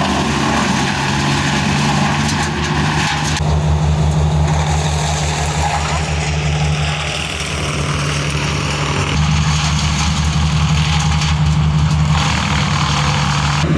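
A heavy engine running steadily, its tone and load shifting about three seconds in and again about nine seconds in.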